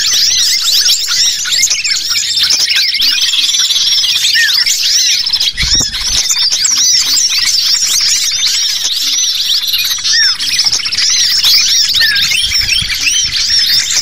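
Bird-lure recording of many small songbirds calling at once, built around agitated common iora (cipoh) calls: a loud, dense mix of overlapping chirps and rising and falling whistles, with a brief low rumble about six seconds in.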